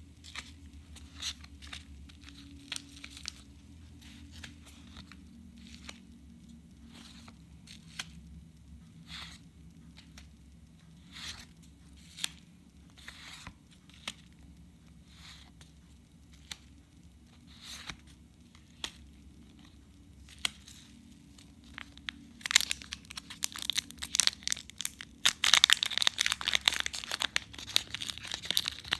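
Trading cards being slid and flipped one at a time, each giving a soft card-on-card swish or click. For the last several seconds the loud crinkling and tearing of a foil booster pack wrapper being ripped open takes over.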